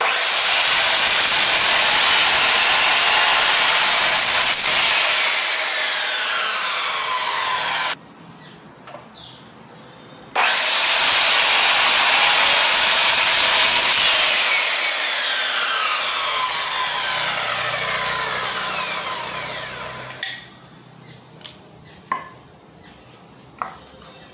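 Electric compound miter saw starting up and cutting a strip of wood with a high whine. It is switched off and the blade spins down in a falling whine. This happens twice, followed by a few light knocks near the end.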